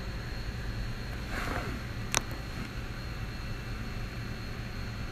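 Steady background hiss and low hum with a faint rustle and a single sharp click about two seconds in.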